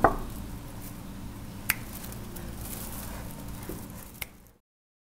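The last of a run of knocks on a door right at the start, then a steady low room hum with two single sharp clicks about two and a half seconds apart, before the sound cuts off to silence.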